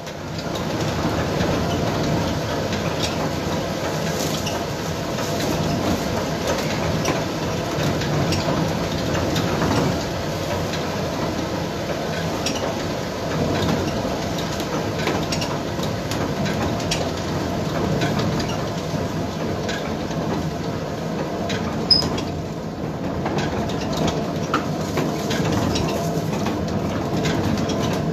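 Wicken Corn Windmill's millstones and wooden gearing running under wind power while grinding grain, a steady rumble with light rapid clattering, and one sharp knock about three quarters of the way through.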